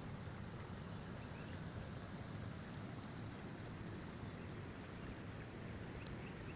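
Shallow creek water flowing steadily over a small riffle: a continuous, even rush, with a few faint ticks.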